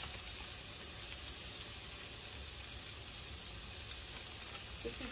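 Cherry tomatoes and garlic sizzling steadily in hot oil in a frying pan.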